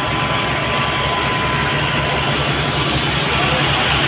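Fire truck's engine running steadily with a low pulsing throb, under a loud, even rushing noise.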